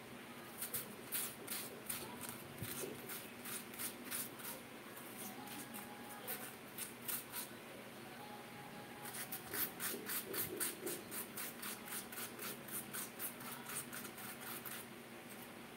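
Raw potato being grated on a metal hand grater: rasping strokes at about three a second, pausing briefly about halfway through and then starting again.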